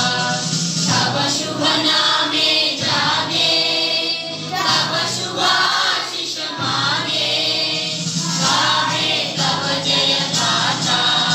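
A group of schoolchildren singing a national song together in unison, in sustained sung phrases with brief breaths between lines.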